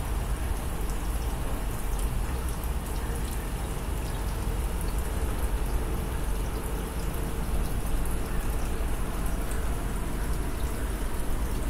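Aquarium air bubbles rising in a stream and bursting at the water surface: a steady fizzing patter of many tiny pops over a steady low hum.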